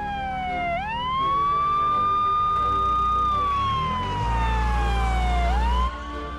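Police siren wailing: the pitch rises quickly, holds, then slides slowly down, twice over. About four seconds in, a vehicle engine revs up under it and cuts off suddenly near the end.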